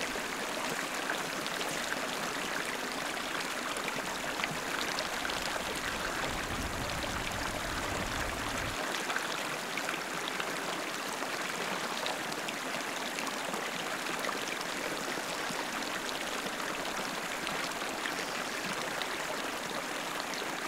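Steady rush of water with many small trickles and splashes, as of lake water lapping on a rocky shore. A low rumble runs under it for about the first nine seconds, then stops abruptly.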